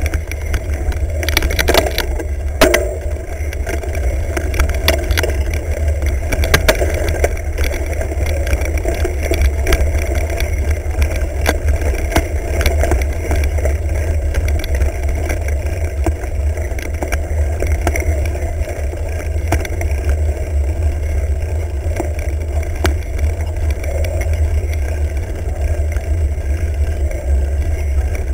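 Mountain bike rolling over a bumpy grass trail, picked up by a bike-mounted action camera: a steady low rumble of wind and vibration on the microphone, with rattles and knocks from the bike and mount, thickest in the first few seconds.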